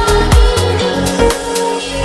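Background electronic music with drum hits and deep held bass notes.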